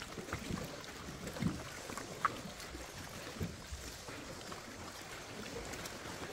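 Water sloshing and splashing around a stand-up paddleboard as it is paddled, in irregular strokes, with one sharp click a little past two seconds in.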